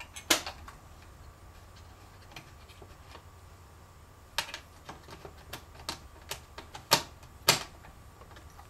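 Sharp clicks and taps of gauge cluster parts being handled and pressed together while a gauge is fitted into a Chevy truck instrument cluster. There is one loud click near the start, then a string of smaller clicks from about halfway, and two loud ones near the end.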